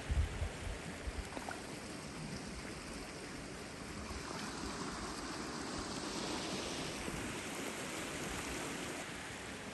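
Shallow stream flowing steadily over a gravel bed, an even wash of moving water, with a few low thumps on the microphone in the first second.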